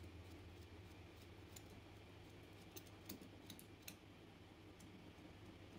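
Faint scraping and clicking of a sharp knife blade scraping singed, burnt hair off a cow's trotter, with a cluster of sharp little ticks around the middle.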